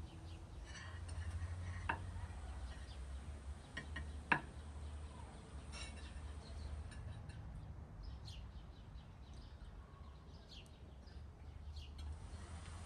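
Faint evening ambience at a table outdoors: two sharp tableware clinks about two and four seconds in, then scattered short, high bird chirps from about two-thirds of the way through, over a low steady rumble.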